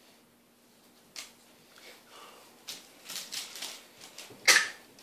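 French bulldog puppy nosing at the plastic bag lining a wicker basket: scattered crinkling and rustling of the plastic, with the loudest sharp rustle near the end.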